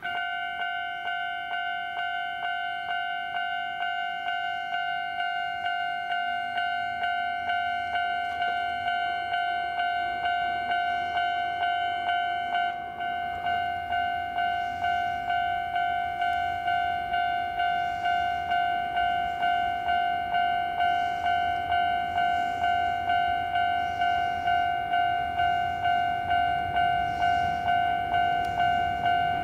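Level-crossing warning bell starting abruptly and ringing in a steady rhythm, about one ring a second, each ring dying away. A low train rumble grows underneath toward the end.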